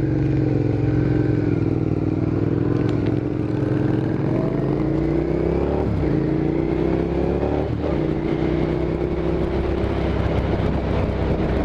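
Suzuki SV650S V-twin motorcycle engine running under way, now that a positive wire shorting to ground has been fixed. The engine note climbs with the revs, then drops sharply about 6 and 8 seconds in as gears are shifted, over wind noise.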